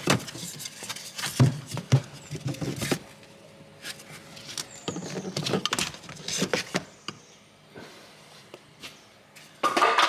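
Wooden board being pried and broken out by hand from behind a fridge ventilation grille opening: irregular cracks, knocks and scraping of splintering wood.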